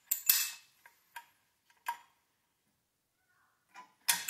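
Steel C-clamp being turned and shifted to press a grease seal into a swingarm pivot bore: a series of sharp metallic clicks and scrapes. Several come in the first two seconds, the loudest about a third of a second in, then a short pause and two more near the end.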